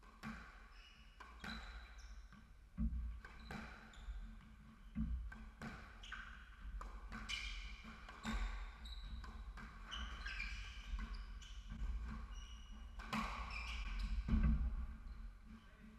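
Squash rally: the ball cracking off rackets and court walls about once a second, with sneakers squeaking and footsteps on the wooden court floor between shots.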